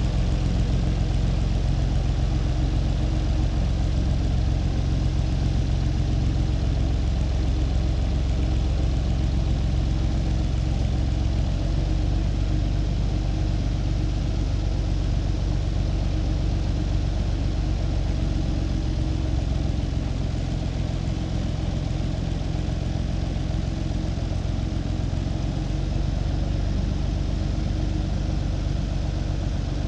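Farm tractor engine running steadily, its note shifting slightly about eleven seconds in.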